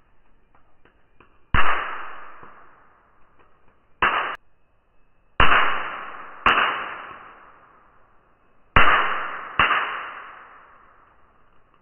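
Black Flag handheld bug zapper's electrified grid cracking six times as flies are zapped. Each crack comes suddenly and fades over a second or two, and the second one is cut short. The last four come in two pairs about a second apart.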